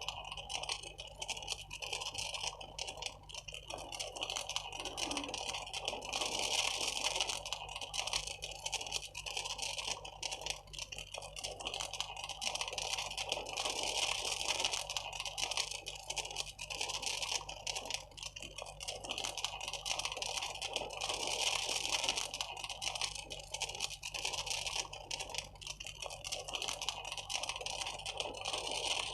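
A high flame burning with a continuous dense crackling.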